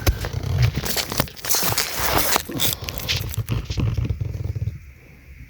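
Crinkling, rustling and clicking of electrical wires and small parts being handled, busy for the first three seconds or so and then dying down.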